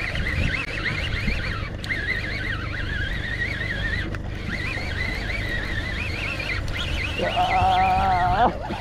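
Wind buffeting the microphone with a low rumble, under a thin wavering whine that runs on throughout. Near the end a long held tone rises over it for about a second.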